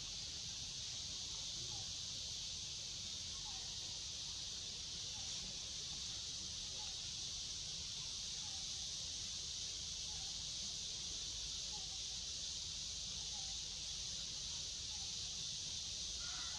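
Steady high-pitched drone of a forest insect chorus, with faint short calls repeating every second or two and a low background rumble.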